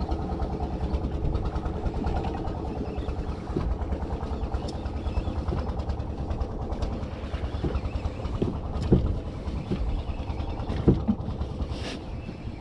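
Fishing boat's engine running steadily at idle, a low even rumble, with a couple of short knocks in the second half.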